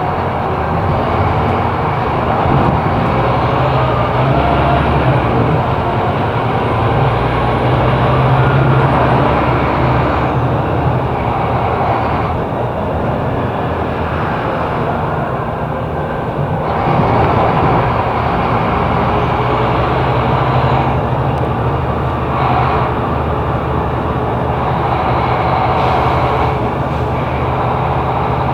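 Scania K270IB city bus engine running under way through its ZF automatic gearbox. The engine note swells and falls back several times, with a marked dip and pick-up about two-thirds of the way through.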